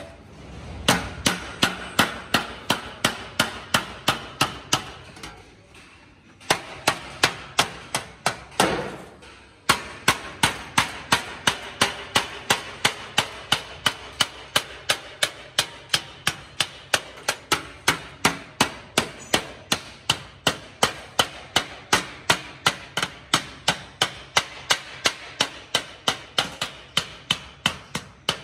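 Wooden mallet striking a stainless steel sheet over an iron stake anvil, bending and closing its edge: steady, sharp, ringing blows, about three a second, with two short breaks around six and nine seconds in.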